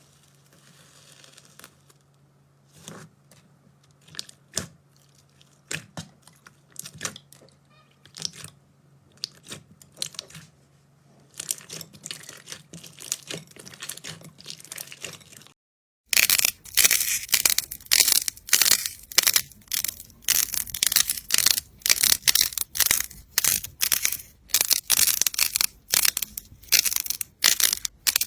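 Slime being squeezed and pressed by hand, giving sticky clicks and pops. At first they are sparse, over a faint low hum; after a cut about halfway, there is a dense run of loud, rapid crackling pops.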